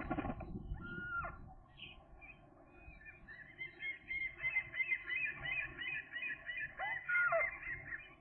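Gulls calling: a single call about a second in, then from about three seconds in a long, rapid series of repeated arched call notes that carries on until near the end.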